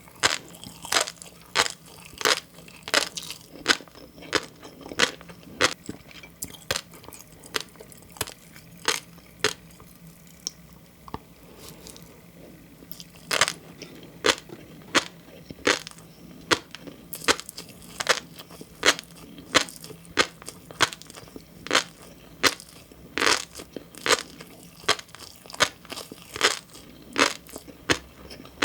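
Close-miked chewing of green flying fish roe (tobiko), the eggs bursting between the teeth in sharp, crisp pops about once or twice a second, with a short pause about a third of the way in.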